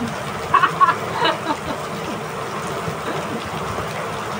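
A steady rushing hiss, with a few short voice sounds about half a second to a second and a half in.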